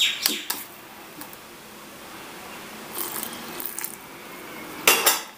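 Steel spoon stirring thick batter in a stainless steel bowl: soft wet scrapes with scattered metal clinks against the bowl, and a sharper, louder clink shortly before the end.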